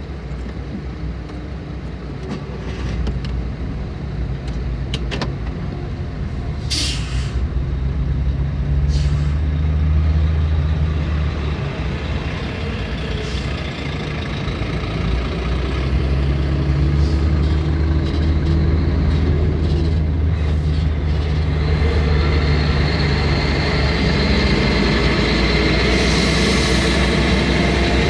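Heavy truck diesel engines running and revving, growing louder through the second half, with a short air-brake hiss about seven seconds in.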